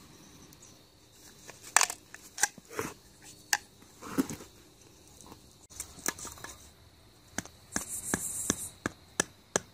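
Mora Black bushcraft knife shaving and cutting into a wooden stick: irregular sharp scraping strokes, a longer shave about eight seconds in, and a quicker run of short strokes near the end.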